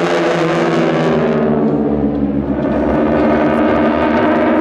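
Four North American T-6 Texans in close formation, their nine-cylinder radial engines droning steadily as a blend of many tones.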